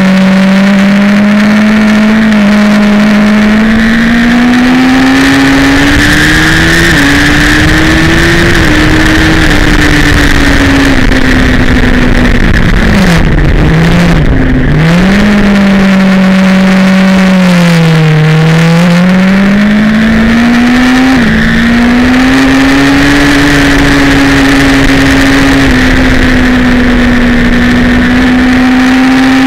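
Sport motorcycle engine, heard from the machine's own fairing, pulling hard on track: the engine note climbs and falls with throttle and gear changes. It dips sharply and recovers around the middle, then climbs again.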